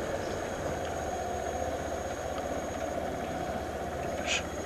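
Motorcycle engine idling steadily at low speed, with a short click about four seconds in.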